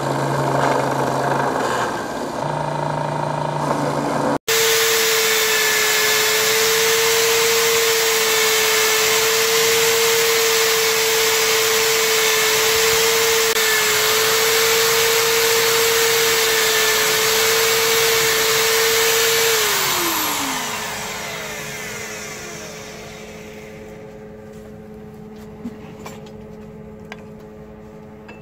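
Belt grinder running as a wooden knife handle is sanded against it. After an abrupt cut, an electric drill spins a buffing wheel at a steady pitch for about fifteen seconds while the knife is polished. The drill then winds down with a falling whine, leaving a low hum and a few small clicks.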